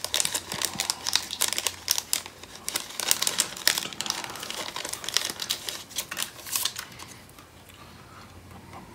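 Clear plastic bag crinkling in quick, dense rustles as hands open it and slide out a decal sheet; the rustling dies down about seven seconds in.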